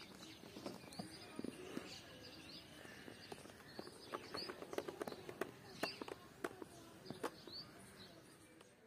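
Faint rural outdoor ambience: a small bird chirps every second or so in short rising calls, over scattered faint clicks and low background noise.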